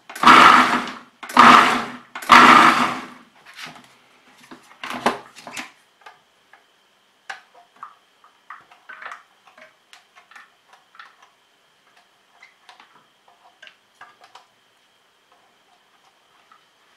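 Food processor pulsed three times in short bursts, its blade chopping onion, red pepper and chilli. Afterwards come light plastic clicks and taps as the lid is unlatched and lifted off.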